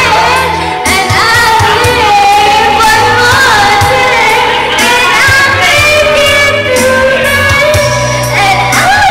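A woman singing a pop ballad into a karaoke microphone over a loud backing track, holding long notes over a steady bass line.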